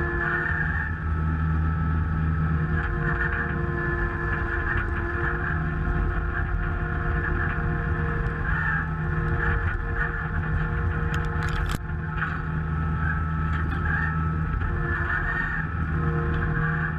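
Logbullet mini forwarder's engine running steadily as the machine drives through snow, with a brief clatter about two-thirds of the way through.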